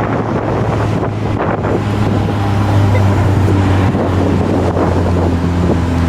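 Vehicle engine running steadily, its pitch shifting about four seconds in, with wind buffeting the microphone.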